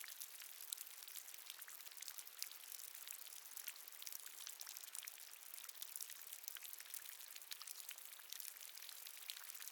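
Faint, steady dripping and trickling water: many small drops ticking over a light continuous splashing hiss, edited to sound as if inside a cave.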